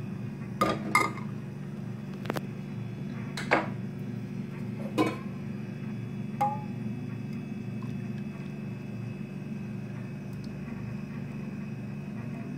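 A steel mesh strainer and utensils clink against a non-stick pan about five times, each with a short metallic ring, over a steady low hum.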